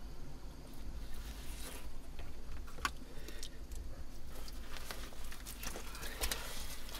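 Gloved hands digging and pulling through wet mud and soil in an old privy pit, with soft rustling and scraping and a few sharp clicks, one about three seconds in and a couple more near the end.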